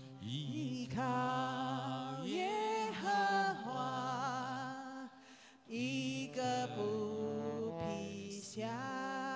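Slow worship singing: a voice holding long, wavering notes over sustained keyboard chords, with a short pause about halfway through.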